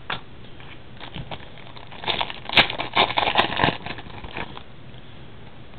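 Trading cards and their plastic packaging being handled: a cluster of crinkles and clicks from about two to four and a half seconds in.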